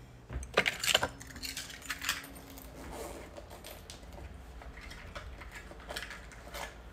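Metal buckle and zipper pulls of a belt bag clinking and rattling as it is fastened and adjusted around the waist: a few sharp clicks in the first two seconds, then lighter scattered clicks.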